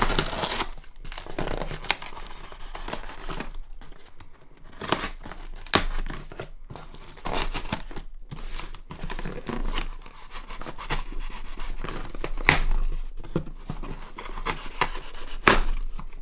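A blade slicing through packing tape along the seam of a cardboard box, with the tape tearing and the cardboard rustling. Sharp knocks and scrapes come as the box is handled and turned over.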